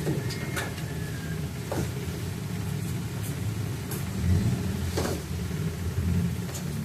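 Steady low mechanical rumble, with a few sharp light clicks and taps scattered through it as a cat paws at a wire pen and a plastic ball-track toy.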